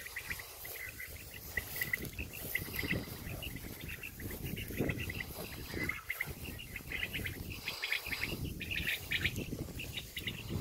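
Meadow insects chirping in quick clusters of short high pulses, over a low rumbling noise.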